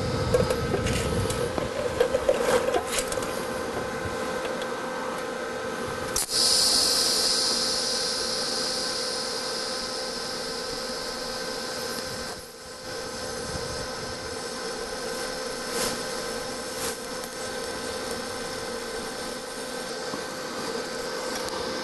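TIG welding arc on steel auto-body sheet metal, with filler rod being fed into a trim hole: a steady hiss. It crackles in the first few seconds, grows to a louder, higher hiss about six seconds in that slowly fades, and drops out briefly around twelve seconds.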